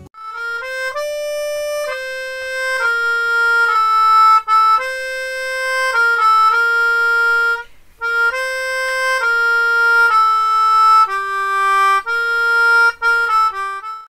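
Background music: a solo wind instrument plays a slow melody of held notes, pausing briefly about eight seconds in.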